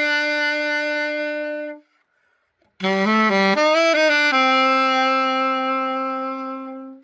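Vintage Novasax AX-502 alto saxophone played solo, without accompaniment: a long held note that stops about two seconds in, then after a short pause a few quick notes leading into another long held note that fades away near the end.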